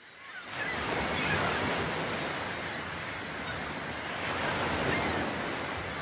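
Ocean surf: a steady wash of breaking waves that fades in over the first half second.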